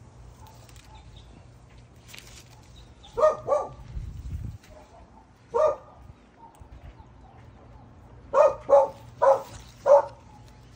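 A dog barking in short sharp barks: a pair about three seconds in, a single bark a couple of seconds later, then four in quick succession near the end. A brief low rumble comes just after the first pair.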